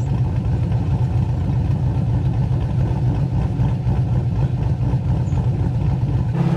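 Holden VY Commodore SS's 5.7-litre V8 running with a steady low rumble; near the end the sound changes abruptly to a smoother hum.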